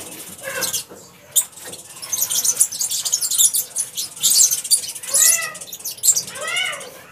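A paintbrush scrubs a waterproofing coat onto a concrete slab in quick strokes. A cat meows twice near the end, each call rising and falling.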